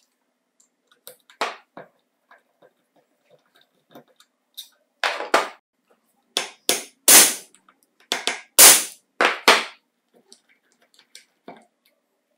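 Hammer blows on a manual impact driver set on a stuck screw in a chainsaw's housing. A few light taps come first, then a run of sharp strikes, the loudest about seven to nine seconds in.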